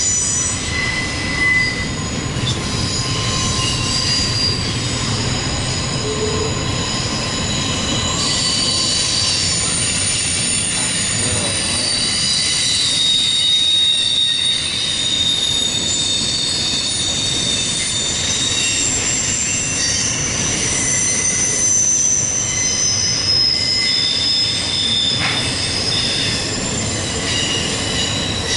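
Steel wheels of a CSX double-stack intermodal freight train squealing as the cars round a curve. Several high, steady squeals at different pitches overlap, starting and stopping one after another, over the constant rumble of the rolling cars.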